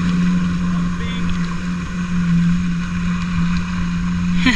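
Jet ski engine running at a steady pitch as the craft sets off, with a haze of water and wind noise.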